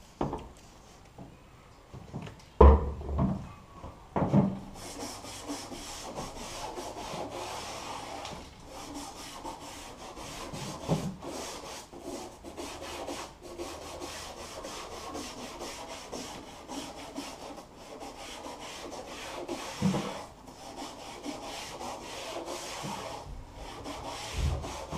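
Hand-scrubbing of an old textured plastic truck bed rail with a toothbrush: a continuous scratchy rubbing made of many quick strokes. A few knocks come from handling, the loudest about two and a half seconds in.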